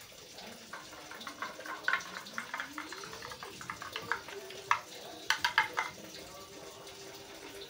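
Sugar glider's claws clicking and scratching on a plastic mesh bowl as it climbs about: a scatter of light ticks, with a few louder clicks about five seconds in.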